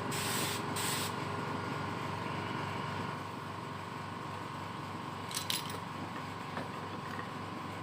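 Paint spray gun hissing in short bursts that stop about a second in, over a steady machine hum with a constant whine that continues throughout. Two short clicks come about halfway through.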